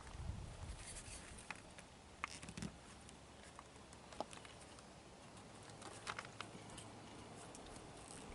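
Faint, scattered light clicks and rustling as a rubber window weather strip is pressed by hand into its channel on a car hardtop.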